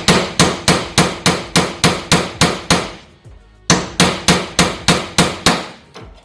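Hammer blows in a steady rhythm, about three a second, struck with short swings in a cramped space under the car. The blows pause briefly about three seconds in, then start again and stop just before the end.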